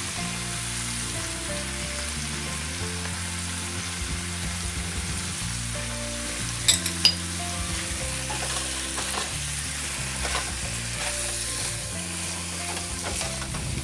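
Shrimp sizzling steadily in hot oil in a frying pan as they are seasoned and stirred with a spatula, with a couple of sharp clicks about seven seconds in.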